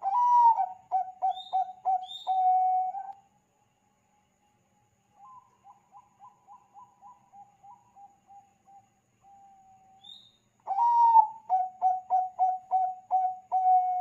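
Bangkok-strain perkutut (zebra dove) cooing twice. Each phrase opens on a higher note, runs into a quick string of about six short coos and ends on a held note. A much fainter cooing phrase comes between them, with a few short high chirps.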